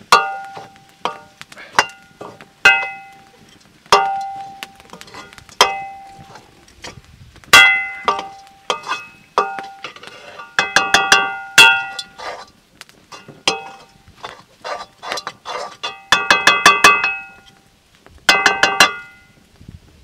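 Steel ladle knocking and scraping against an iron wok as food is stirred, each strike ringing on the same metallic notes. Single clanks come every second or two, with quick runs of rapid clanks about halfway through and near the end.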